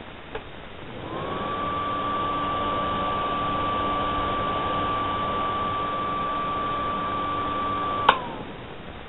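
Silavent louvred extractor fan starting up: its whine rises quickly about a second in and holds a steady pitch over a lower hum. Near the end a sharp click comes and the whine falls away as the fan stops.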